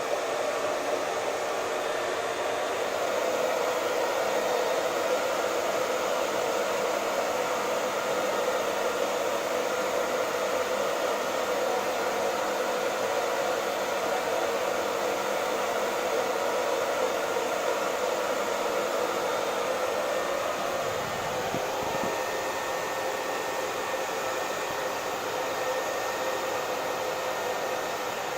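Hair dryer running continuously, a steady rushing blow of air with a faint motor tone. It shifts slightly and gets a little quieter about three-quarters of the way through.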